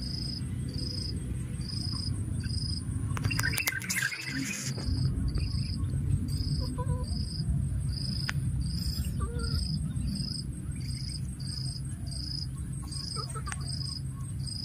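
An insect chirping steadily, one short high chirp about every second, with a thin steady high buzz above it and a steady low rumble underneath. There is a brief louder noise about four seconds in.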